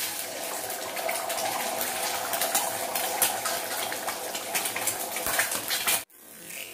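An egg frying in hot oil in a cast-iron kadai, a loud steady sizzle full of fine crackling spits. It cuts off abruptly about six seconds in.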